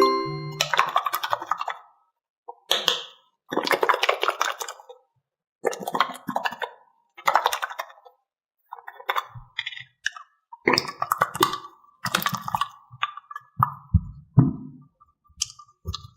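Small toys being handled: a run of short clinking, rattling bursts with brief pauses between them, turning into shorter knocks near the end.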